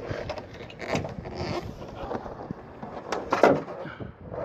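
A few clunks and knocks from the Jeep's body hardware being handled, one about a second in and a close pair a little after three seconds, the second the loudest.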